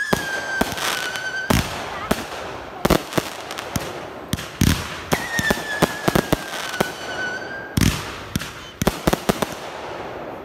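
Consumer aerial fireworks going off: a rapid, uneven string of sharp bangs and reports. Two long whistles run through it, each dropping slightly in pitch over about two and a half seconds. The first fades out about a second and a half in; the second starts about five seconds in.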